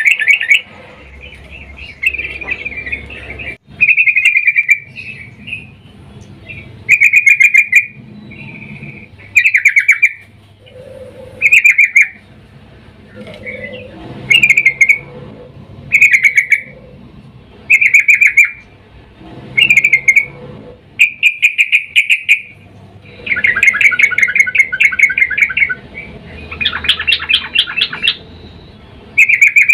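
Female yellow-vented bulbul (trucukan) calling in short bursts of rapid chattering notes, about one burst every two seconds, with two longer bursts near the end. It is a female's call to males, used as a lure to get male trucukan singing.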